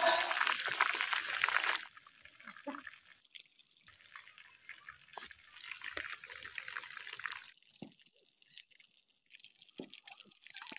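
A whole chicken deep-frying in hot oil in a kadhai, with a dense crackling sizzle. The sizzle drops off sharply about two seconds in, comes back more faintly in the middle, and thins to scattered pops near the end.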